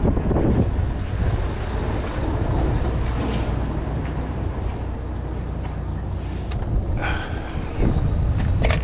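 Diesel truck engine idling with a steady low rumble, with a few brief knocks near the end.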